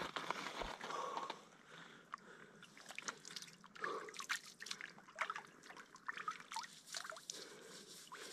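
Creek water splashing and dripping as a person scoops it up in his hands and pours it over his head, drops spattering irregularly onto the stones. Boots shuffle on creek rocks as he crouches at the start.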